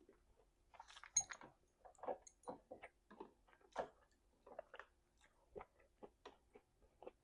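A person eating with the mouth open: quiet, wet smacks and clicks of lips and tongue, a few to the second and irregular, louder about a second in and again near four seconds in.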